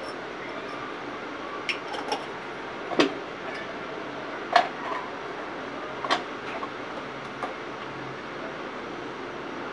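Glass spice jars and a spoon clinking and tapping while spices are added to a cooking pot: several sharp clicks a second or so apart, the loudest a third of the way in and near the middle, over a steady background hiss.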